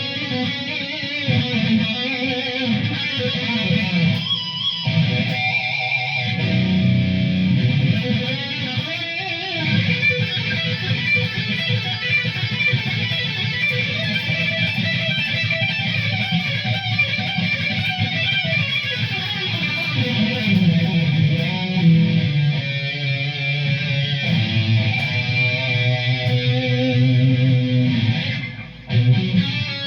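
Ibanez ICTB721 Iceman seven-string electric guitar with DiMarzio D Activator pickups, playing an improvised lead through an amp. The notes are bent and waver in pitch, with a short break about four seconds in and another just before the end.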